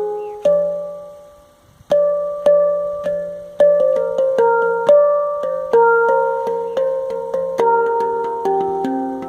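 Handpan tuned to F minor played by hand: single notes are struck and left ringing over the low F of the central ding. The first note dies away with no new strike for about a second and a half. Then the notes come steadily faster and overlap.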